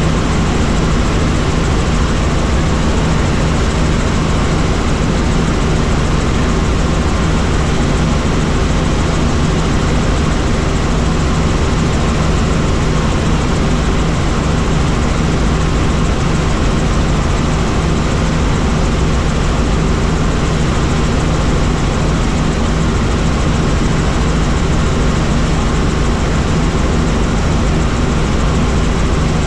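Helicopter in flight: the steady drone of its engine and rotors, with an even low hum and no change in pitch or loudness.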